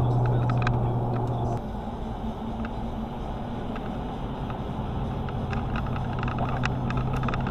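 A car driving, with steady engine and road noise heard from inside the cabin through a dashcam microphone. A strong low hum drops away about one and a half seconds in and comes back faintly later, and scattered light clicks run over it.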